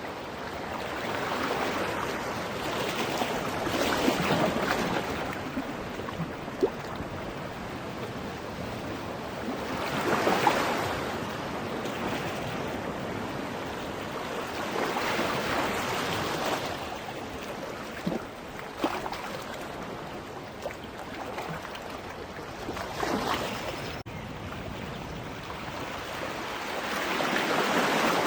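Ocean surf breaking on a beach, the wash swelling and falling away in waves every five seconds or so, with a few small sharp splashes in between.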